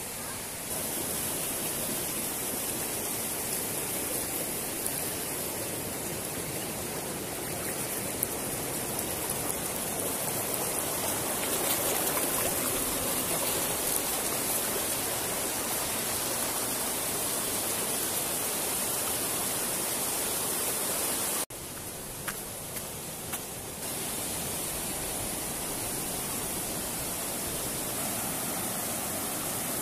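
Fast mountain river rushing over rocks and small rapids, a steady sound of running water. About two-thirds of the way through it drops away suddenly, stays quieter for a couple of seconds with a few light ticks, then the rushing returns.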